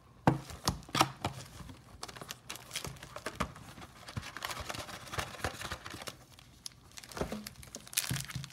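Foil trading-card pack wrappers crinkling and being torn open by gloved hands, with a few sharp knocks in the first second or so and again near the end as the cardboard box and packs are handled.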